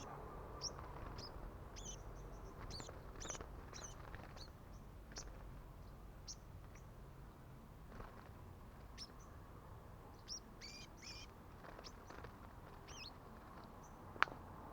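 Sunbirds giving faint, short, high chirps scattered irregularly, with a single sharp click near the end.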